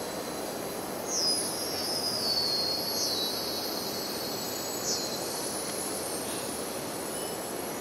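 Dark ambient soundscape: a steady rushing, rumbling noise bed with thin high-pitched squealing tones that slide downward several times in the first five seconds, one of them held for a few seconds.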